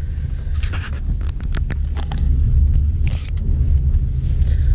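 Dacia Duster taxi heard from inside the cabin: a steady low engine and road rumble as the car drives, growing a little louder about two seconds in. A few short light clicks and rustles sound over it.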